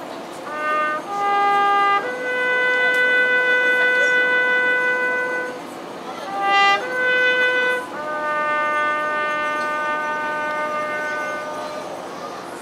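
A lone trumpet playing a slow military call: a couple of short notes rising into a long held note, then a few more short notes leading into another long held note.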